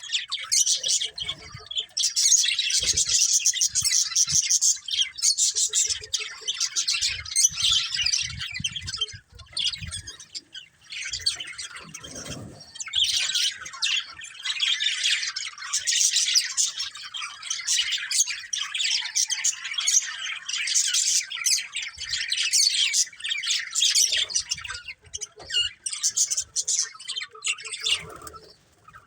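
Budgerigars chirping and chattering, a dense, fast twittering with short lulls about ten seconds in and near the end.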